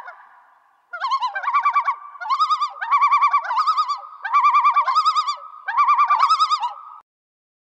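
Bird-like warbling whistle in short trilled phrases, repeated several times with brief gaps, cutting off suddenly near the end.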